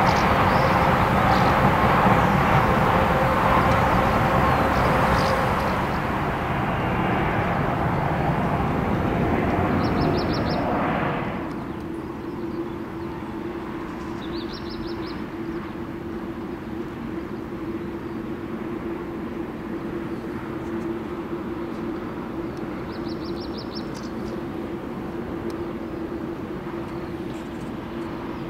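Boeing 747-8I's four GEnx-2B turbofans running at taxi power: a loud, steady jet noise with whining tones that drops away about eleven seconds in, leaving a quieter steady hum with one low tone. Short high chirps of a bird come through three times.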